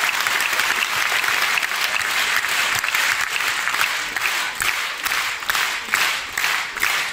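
Concert audience applauding at the dancers' bows. About halfway through, the applause falls into rhythmic clapping in unison, about three claps a second.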